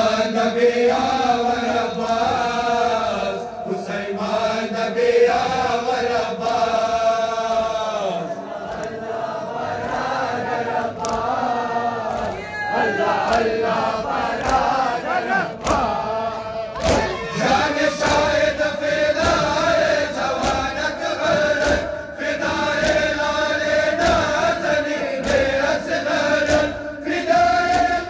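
Male mourners chanting a Muharram noha lament in unison, with sharp slaps of hands striking bare chests in matam breaking through now and then, most often in the second half.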